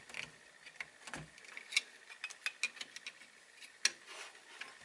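Light, irregular clicks and taps of the plastic rear anti-ice plate being handled and worked into a G3 Enzo telemark binding, with a couple of sharper clicks.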